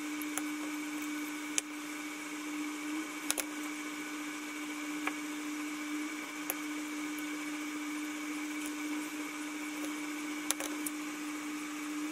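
A steady mechanical hum with a hiss, like a small motor running, with a few light clicks as small plastic model parts are handled.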